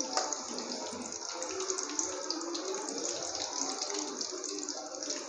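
Hot oil sizzling and crackling steadily around stuffed bitter gourds (karela) deep-frying in a pan.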